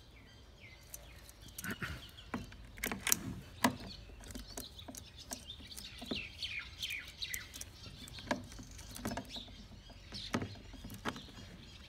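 Scattered light clicks and clinks of the saw chain and bar being handled and fitted onto a cordless chainsaw. Birds chirp now and then in the background, with a run of short falling chirps about halfway through.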